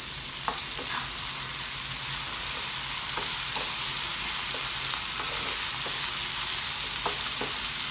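Bell peppers and onion stir-frying in a nonstick pan: a steady hot-oil sizzle, with the wooden spatula scraping and knocking against the pan now and then as the vegetables are tossed.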